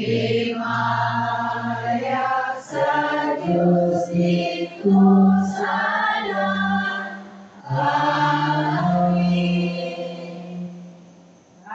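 Liturgical chant sung at Mass: slow, held phrases in a man's voice range, amplified through a microphone and church sound system, with brief breaks between phrases.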